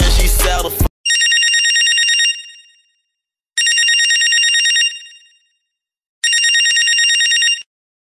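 Hip hop music cuts off just under a second in, then a telephone rings three times: an electronic trilling ring, each ring about a second and a half long with a short fading tail, about two and a half seconds apart.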